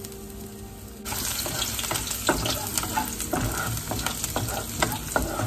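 Minced garlic sizzling in hot oil in a nonstick wok, with a wooden spatula scraping and knocking against the pan as it is stirred. The loud sizzle starts suddenly about a second in.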